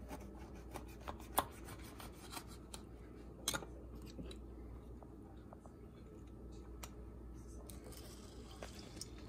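Paring knife cutting key limes on a plastic cutting board: scattered small clicks and taps of the blade and the fruit, the two sharpest about a second and a half in and at three and a half seconds, over a faint low hum.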